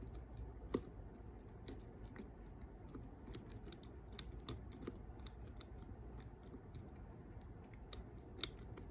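Light, irregular metallic clicks and ticks of a picking wire and tension tool working the levers inside a lever padlock, with a sharper click about a second in.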